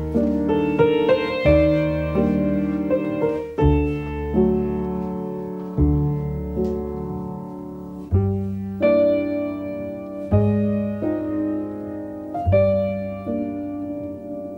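Slow piano music: chords struck about every two seconds, each left to ring and fade before the next.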